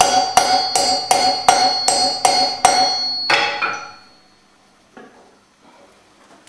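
A hammer strikes a hand-held cutting punch on a large steel rasp cylinder, about three blows a second, each with a sharp metallic ring, raising rasp teeth one by one. The blows stop a little after three seconds in, the last one ringing out, and a faint knock follows.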